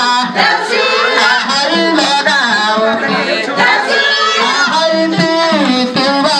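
Women's and children's voices singing a Nepali Deusi-Bhailo festival song together in chorus, with a regular beat under the voices.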